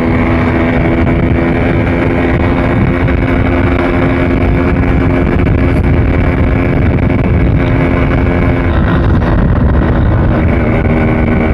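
Yamaha RX100's two-stroke single-cylinder engine running at a steady speed under way, its note holding even. About nine seconds in the note breaks briefly, then steadies again.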